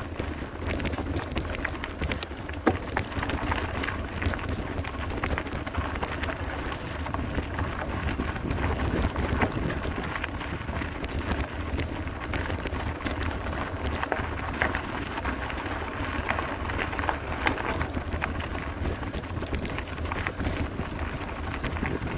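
Mountain bike riding fast over a rough dirt trail: steady tyre rumble and frame rattle, with many sharp knocks from rocks and roots and wind buffeting the microphone.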